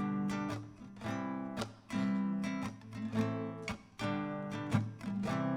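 Acoustic guitar strumming chords between sung lines of a song, each strum ringing on.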